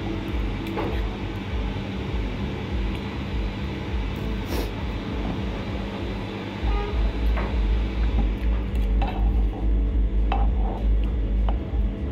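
Metal spoon and fork clicking and scraping against a bowl now and then while eating, over a steady low rumble that grows louder about halfway through.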